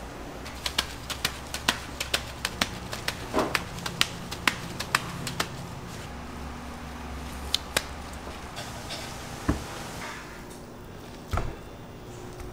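A ball of ground beef being slapped over and over into a stainless steel pan by gloved hands, quick sharp slaps about three a second for the first five seconds, then a few scattered ones. A steady low hum runs underneath.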